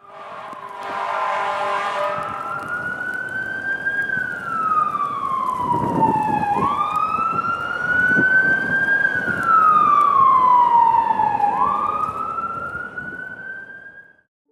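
Emergency-vehicle siren in a slow wail, rising and falling in pitch about every five seconds, over street traffic noise. A brief horn-like blare sounds at the very start.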